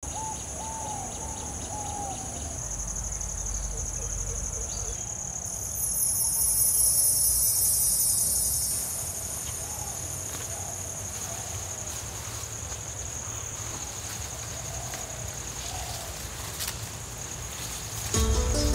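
Insects, crickets or cicadas, droning steadily in two high-pitched tones, swelling into a louder high buzz from about six to nine seconds in. A bird gives a few short, low, arched calls now and then, and music comes in just before the end.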